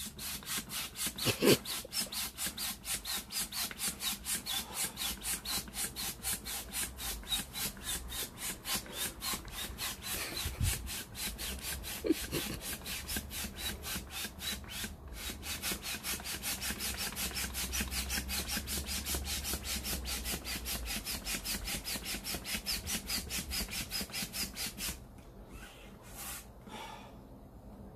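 Hand air pump inflating a 65 cm gym ball: a steady run of rapid rasping air strokes, about three or four a second, that pauses briefly near the end.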